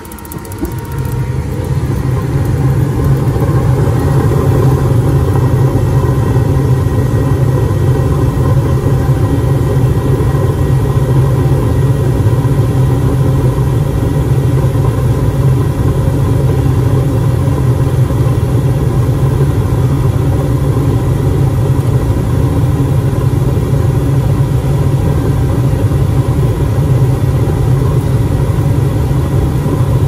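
Gas furnace firing with its row of burners lit: a steady roar from the flames and the draft inducer motor. It swells over the first couple of seconds, then holds even.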